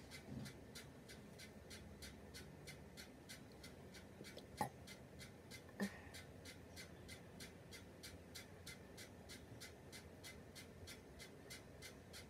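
Near silence: faint room tone with a soft, even ticking about three times a second, and two short sharp clicks near the middle.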